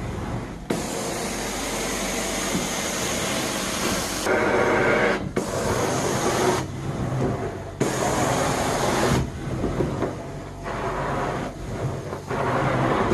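Carpet-cleaning extraction wand pulled across carpet in repeated strokes: a loud suction hiss that surges and breaks off every second or so as the wand is lifted, over the steady hum of the extraction machine.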